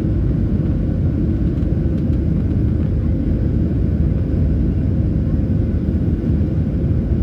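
Boeing 737's turbofan engines at takeoff thrust, heard from inside the cabin: a steady, dense low rumble with a faint steady hum above it.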